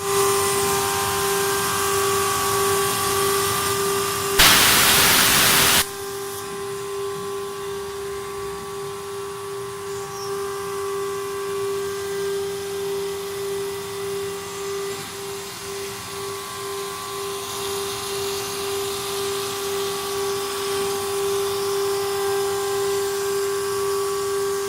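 CNC router spindle running with a steady whine while milling, interrupted about four seconds in by a loud hissing burst that lasts about a second and a half.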